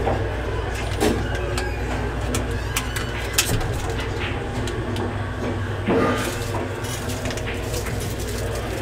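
Pool hall room noise: a steady low hum with a few sharp clicks and knocks, about a second in, around the middle and about six seconds in.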